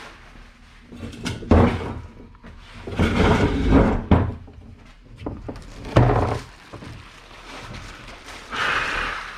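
Packaging being handled: a few sharp knocks and thuds, about a second and a half in, around four seconds and at six seconds, with rustling between them and a brief hissing rustle near the end.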